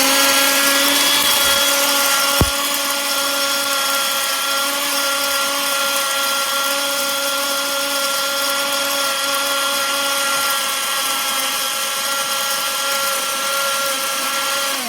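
500-gram electric grain mill running at high speed, milling wheat berries into flour: a loud, steady high-pitched motor whine, with one sharp click about two and a half seconds in, winding down at the very end as it is switched off.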